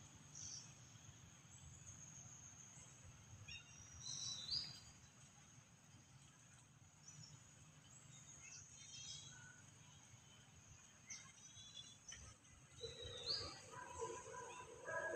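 Faint outdoor ambience with scattered bird chirps, short rising calls a little after four seconds and again near thirteen seconds, over a steady high insect hiss. Near the end a pitched, wavering call comes in.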